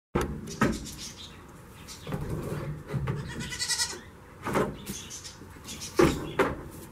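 A goat bleats once, high-pitched, about halfway through, amid a few sharp knocks of goat hooves against the pen's wooden boards, the loudest near the end.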